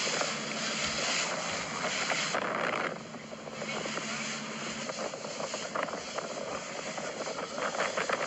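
Motorboat under way on open water: a steady engine hum under a constant rush of wind and water, dipping briefly about three seconds in.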